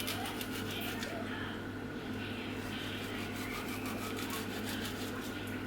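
A steady low mechanical hum, as from a running motor or fan.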